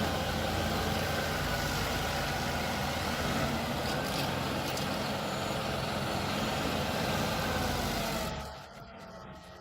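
Stump grinder running, a steady engine note under a broad grinding noise; the sound drops away sharply about eight seconds in.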